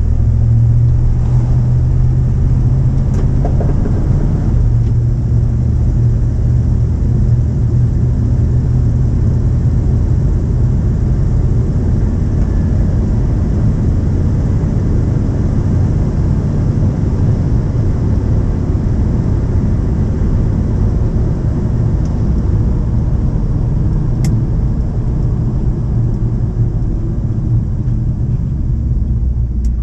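1972 Chevrolet C20 pickup driving along a street, heard from inside the cab: a steady low engine rumble mixed with road noise.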